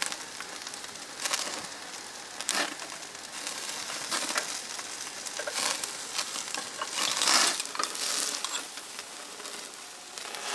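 Koobideh kabob skewers sizzling over hot charcoal, with irregular crackles and pops.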